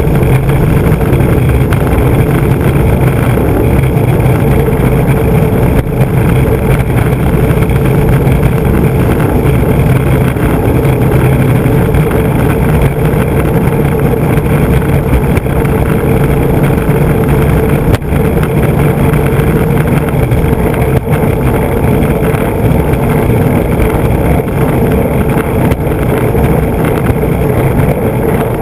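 3DM urethane skateboard wheels rolling fast over coarse asphalt, a loud steady roar picked up close by a camera mounted on the board beside the truck. There is a brief knock about six seconds in and again about eighteen seconds in.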